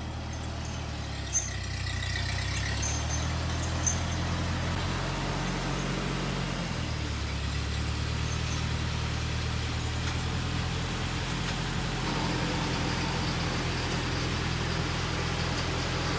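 Ford 9N tractor's four-cylinder flathead engine running at low speed as the tractor backs slowly, with a steady low note that shifts slightly about six seconds in. Two light clicks come within the first four seconds.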